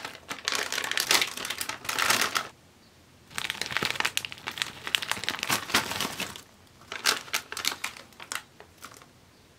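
Doritos 3D snack bag crinkling in the hands as it is handled, opened and reached into for a chip. It comes in three bursts of rustling with short pauses between them.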